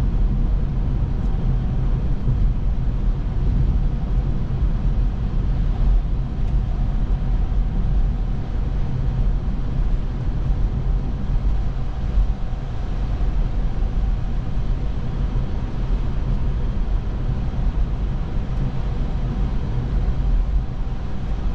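Tesla electric car driving steadily: a low, even road and tyre rumble heard inside the cabin.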